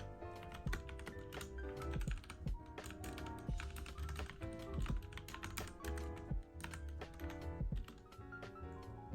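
Mechanical keyboard being typed on in quick, irregular key clicks, over soft background music with pitched notes and a low pulse.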